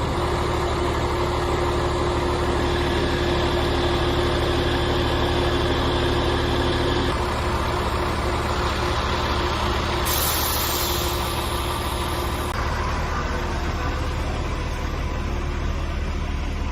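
Heavy vehicle's engine running steadily at idle, with a short hiss about ten seconds in.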